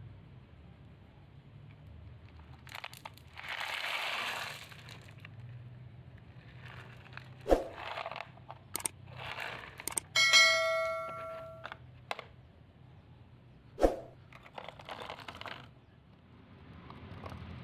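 Toys being handled: rustling and scraping, two sharp knocks, and one bell-like metallic ding about ten seconds in that rings for about a second and a half.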